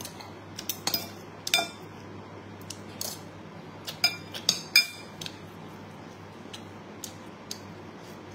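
Metal spoon and fork clinking and scraping against a ceramic bowl of rice, in scattered short clinks that come thickest in the first five seconds and thin out after.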